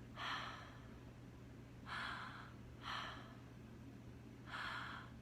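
A woman taking slow, deep breaths in and out, several audible breaths a second or so apart, as a calming-breath demonstration.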